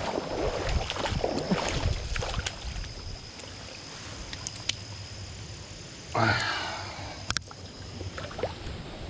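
Water splashing and sloshing, with a louder splash about six seconds in and a couple of sharp clicks just after.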